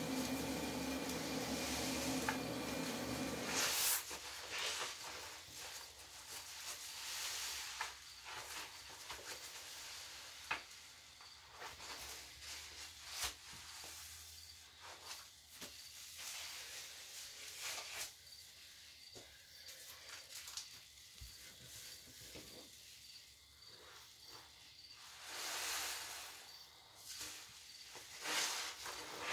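Thick cleaner foam crackling and fizzing as a soaked sponge is squeezed and kneaded in it by hand, with wet squishes and many small bubble pops. A steady hum runs under the first few seconds, then stops.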